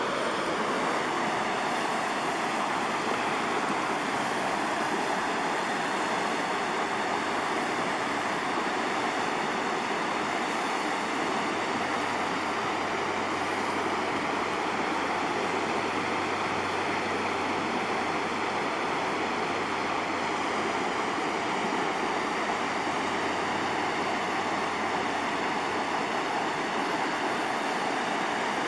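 Creek rapids rushing steadily over rocks, a constant, even roar of white water.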